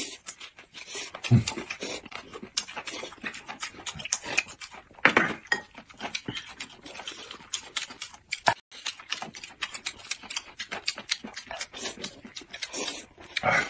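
Noodles being slurped and chewed: a steady run of wet slurps and smacking chews, with louder slurps about five seconds in and near the end.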